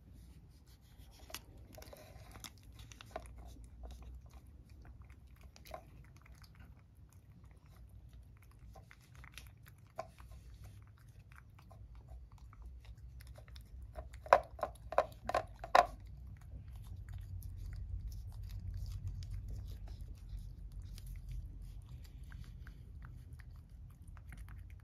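Cat licking a churu paste treat out of a small ceramic bowl: soft wet licking clicks, with a quick run of about five louder clicks about halfway through.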